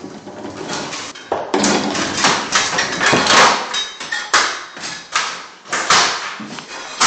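Irregular knocking and clattering, several hard hits a second at times, from hard parts being handled or struck.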